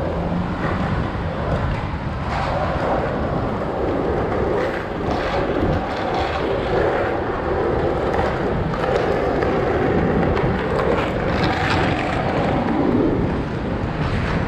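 Inline skate wheels of a group of skaters rolling over an asphalt street: a steady rolling rumble.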